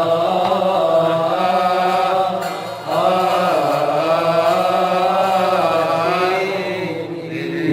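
Coptic liturgical hymn chanted by a male voice in one long melisma, the held notes slowly bending up and down, with a short breath about three seconds in and again near the end. A steady low hum runs beneath.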